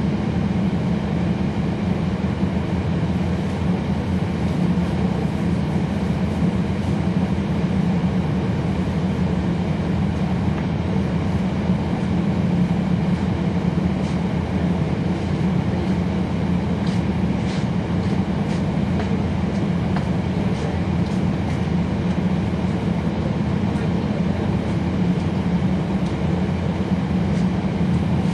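Cummins ISL9 inline-six diesel of a 2011 NABI 40-SFW transit bus, heard from on board as a steady drone with its engine cooling fans running. A few faint clicks come about two-thirds of the way through.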